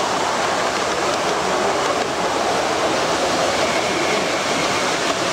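Steady wash of noise from a busy exhibition hall, with a model train running past on the layout, its wheels rolling over the track.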